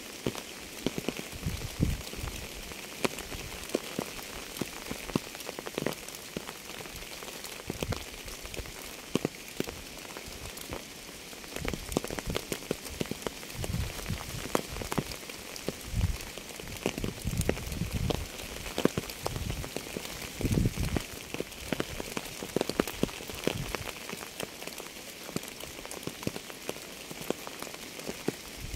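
Rain falling steadily: a constant hiss with many individual drops tapping close by, some of them heavier thuds.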